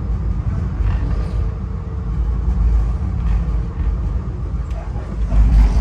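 Steady low rumble of a moving passenger rail car heard from inside the car, with a few light clicks and rattles; the rumble swells briefly near the end.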